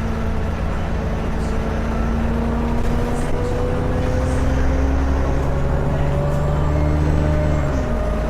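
ADL Enviro400 double-decker bus's diesel engine pulling under load, with a whine rising slowly in pitch and a faint high turbo whistle. The engine note drops suddenly near the end.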